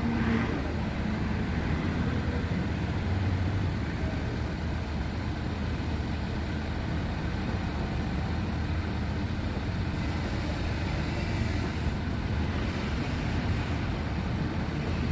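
Heavy diesel engine of construction machinery running steadily, a continuous low drone.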